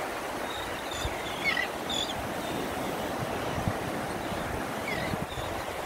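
Steady wash of ocean surf with wind noise, and a few faint, short high chirps.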